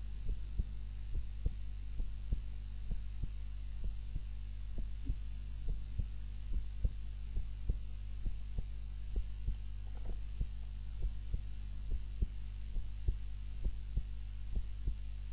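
A woman's heart beating steadily at rest during sleep, heard at the chest as regular paired lub-dub thumps. A steady low hum runs underneath.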